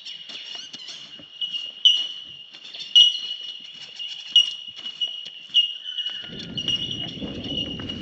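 A steady high-pitched chorus of birdsong with a louder note every second or so, over light footsteps on the track. About six seconds in, a low rolling rumble of thunder begins and keeps going.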